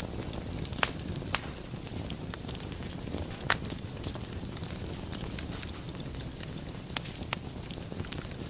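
Wood fire burning in a fireplace: a steady low rumble of flames with scattered sharp crackles and pops from the logs, the loudest pop about three and a half seconds in.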